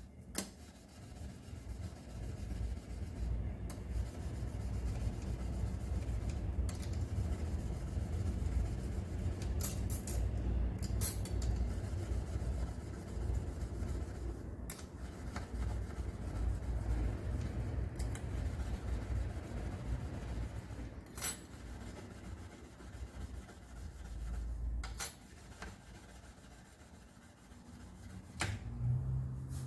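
Hand sanding or filing on a guitar part: a long run of steady rubbing strokes, fading down near the end, with a few sharp clicks and taps in between.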